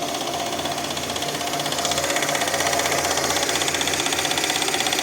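Lada Niva VAZ-21214's 1.7 L four-cylinder engine running evenly, with a fast, regular knock of unclear origin over the engine note. The owner suspects a slack timing chain that needs tensioning.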